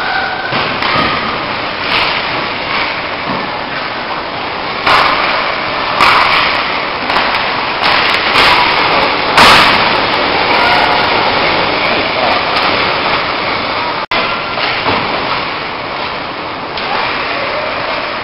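Ice hockey play in an echoing rink: a steady wash of skates on ice and hall noise, with a run of sharp cracks and knocks from sticks, puck and boards between about five and ten seconds in, the loudest near ten seconds.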